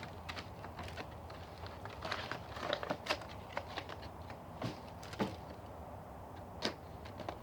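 Plastic packaging crinkling and clicking in the hands as Heroclix booster packs and figures are handled, a cluster of quick rustles and snaps followed by a few single sharp clicks.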